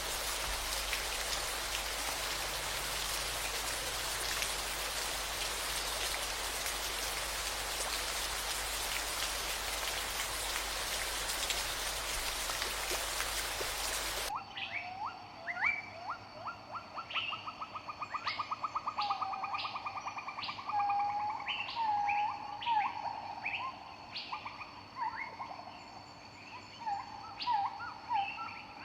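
Steady rain falling, which cuts off abruptly about halfway through. It gives way to birdsong: many short chirps and whistles with a fast trill.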